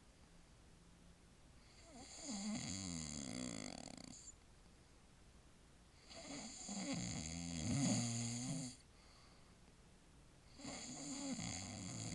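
A man snoring in deep sleep: three long snores, about four seconds apart, with quiet breathing between them.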